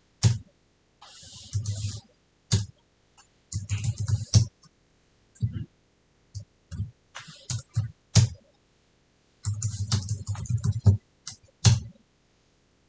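Typing on a computer keyboard in bursts of keystrokes with short pauses between, each press a click with a dull thud; the typing stops near the end.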